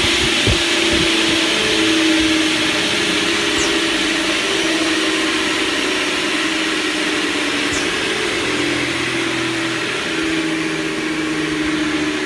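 Toskar Woodmaster 400 TRS door-frame machine running steadily under its electric motors, a continuous mechanical hum with a slightly wavering tone.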